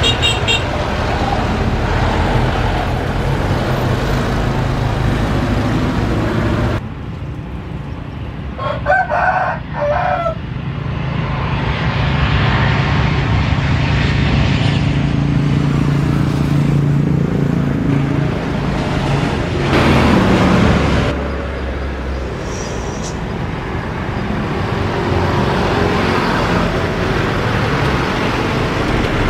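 Boeing 737 airliners' jet engines running as they come in to land, the noise cutting from one aircraft to the next and swelling loudest about twenty seconds in. A rooster crows about nine seconds in, during a quieter stretch.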